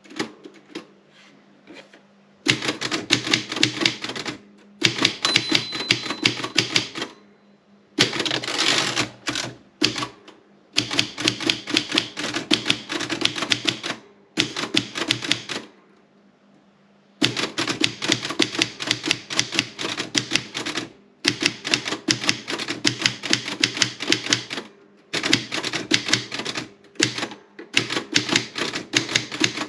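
Erika 30 typewriter being typed on: runs of rapid keystrokes, each a few seconds long, broken by short pauses. The first couple of seconds hold only a few scattered key strikes.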